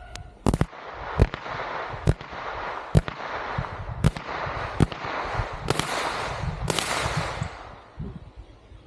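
Airsoft AR-style rifle firing single shots, a sharp crack about once a second, with two louder, longer bursts near the end.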